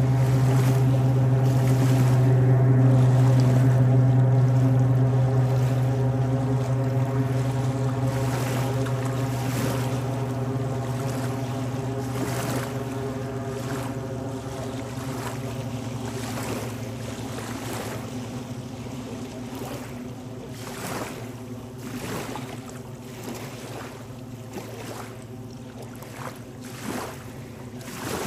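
A motorboat's engine drones steadily, slowly fading over the stretch. As it dies away, small waves lap and splash.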